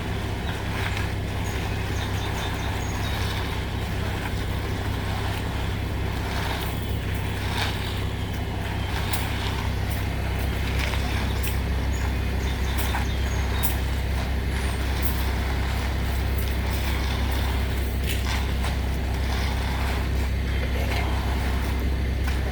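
Ready-mix concrete truck's diesel engine running steadily while the concrete is run out, with scattered short clinks and scrapes over it.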